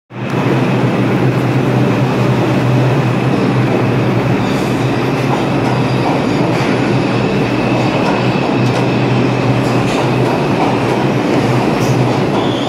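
New York City subway train moving past the platform: a loud, steady rumble of wheels on the rails with a thin high tone held over it and a few faint clicks.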